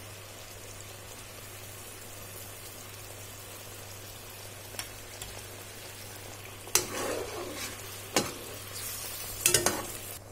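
Sweet and sour sauce simmering in a pot with a steady hiss, just thickened with cornstarch slurry, over a steady low hum. In the second half a spoon stirs it, knocking against the pot several times.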